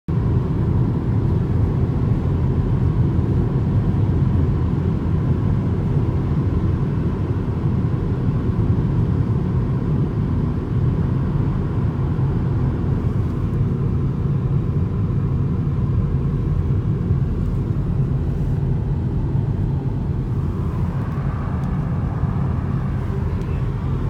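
Steady low road rumble inside a car's cabin while it drives at expressway speed: tyre, engine and wind noise.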